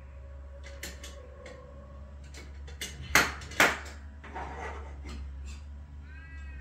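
Hand tools being handled, with light metallic clinks, then two loud knocks close together about three seconds in and a short squeak near the end.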